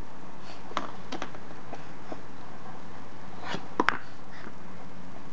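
A handful of short, light clicks and taps, scattered irregularly over a steady low room hum, with two sharper ones close together just before four seconds in.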